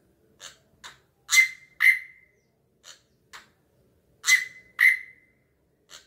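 A drongo singing a short repeated phrase: two softer sharp notes, then two loud notes that ring on for a moment. The phrase comes twice.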